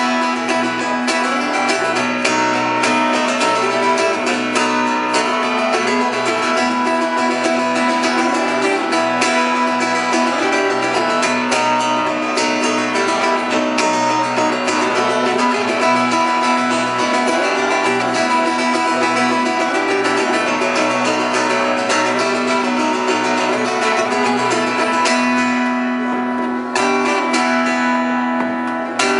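Live instrumental guitar playing, a busy run of picked notes, with an electric bass guitar plucked underneath.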